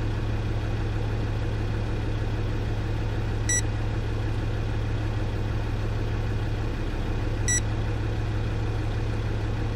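Land Rover Discovery 2's Td5 five-cylinder diesel idling, a steady low hum heard from inside the cabin. Two short electronic beeps come about four seconds apart.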